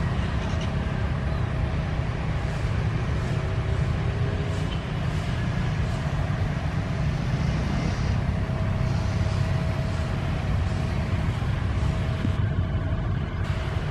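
Steady low engine rumble, unchanging in loudness, with a faint steady tone coming and going.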